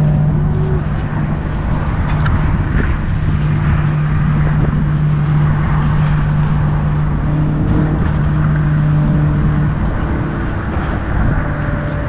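A motor running steadily: a constant low hum at one pitch over a dense low rumble.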